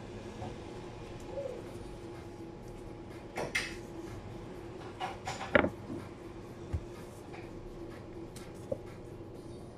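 Kitchen work at a sushi counter: a few scattered knocks and clatters as things are handled and set down, the loudest about five and a half seconds in. A steady hum runs underneath.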